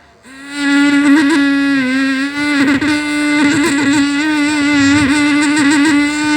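Vocal beatbox: one long held tone with small wobbles in pitch, starting about half a second in, with short clicks and mouth sounds over it.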